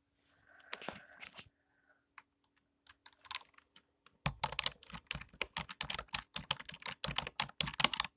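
Keys of a new computer keyboard being typed: a few scattered key clicks, then from about four seconds in a fast, continuous run of clacking keystrokes as the key sound is tried out.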